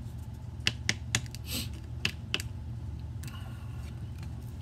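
Paper pages being handled and turned: about six sharp clicks and taps in the first two and a half seconds, one with a short rustle.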